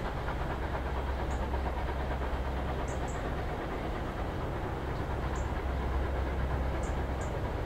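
Steam train hauled by GWR pannier tank No. 7714 running along the line, a steady deep rumble without distinct beats.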